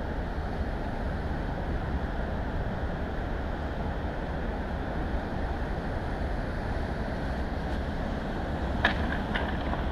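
Steady rush of sea surf breaking on a pebble beach, mixed with wind buffeting the microphone. Near the end come a few sharp clacks of stones as the paraglider pilot's feet land on the pebbles.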